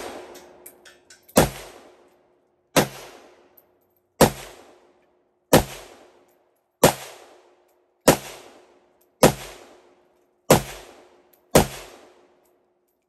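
Chinese Type 56 SKS semi-automatic rifle firing 7.62×39 rounds in steady slow fire: nine sharp, loud shots about a second and a quarter apart, each followed by a short echo.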